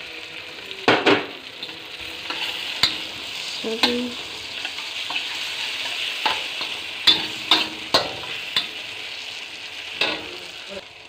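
Garlic, ginger and onion frying in butter in a hot wok, sizzling steadily as black bean garlic sauce is stirred in. A utensil knocks and scrapes against the wok a dozen or so times.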